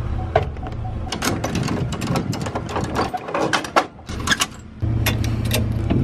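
Metal clinking and rattling as a boat trailer's coupler and safety chain are hooked to a pickup's ball hitch, many sharp clanks in quick succession, over a steady low hum of the truck's engine idling.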